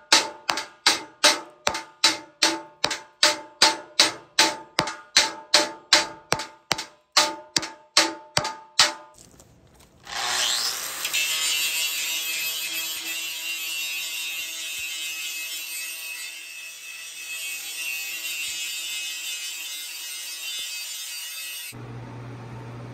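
Hammer blows on thin steel plate, about three a second, each one ringing with the same metallic tones, for about nine seconds. Then an angle grinder spins up and grinds the steel plate's edges steadily, stopping shortly before the end, when a low steady hum remains.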